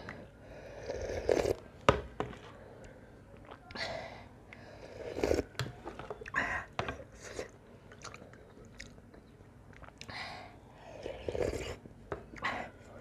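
Close-up eating sounds: several slurps of thin buckwheat-flour soup from a spoon, with chewing in between and a few sharp clicks of a metal spoon against the bowl.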